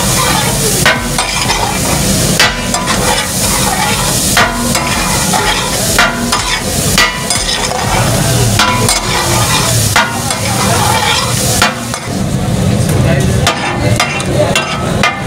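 Metal spatulas clacking and scraping on a large flat iron tawa as fish katakat is chopped and stirred, over steady sizzling. This is the irregular clatter that gives katakat its name.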